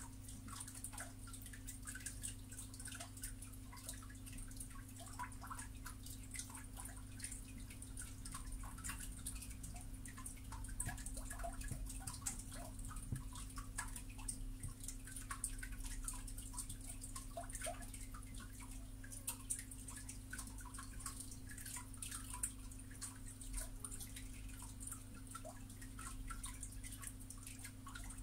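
Steady low hum and high hiss with faint, irregular small clicks and ticks scattered throughout.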